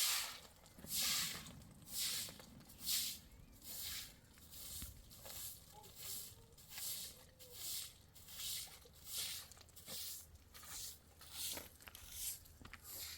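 Rhythmic scraping or crunching strokes, about one a second at first, then a little quicker and fainter.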